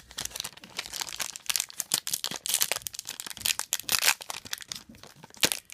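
Trading card packaging being torn open and crinkled by hand, a dense run of irregular crackles and rustles that is busiest midway and thins out near the end.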